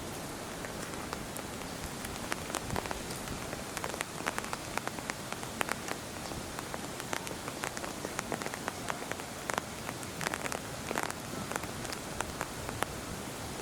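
Rain falling steadily on a surface, with a continuous hiss and many irregular drop ticks.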